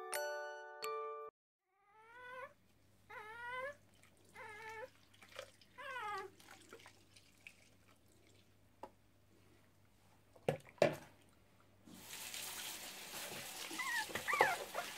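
Six-week-old Shih Tzu puppy whimpering: four or five short, high whines, each rising and then falling in pitch. Near the end comes a steady splashing and trickling of water in the tub.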